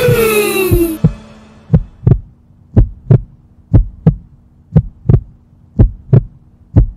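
Heartbeat sound effect: paired lub-dub thumps about once a second over a faint steady hum, after a loud falling whoosh dies away in the first second.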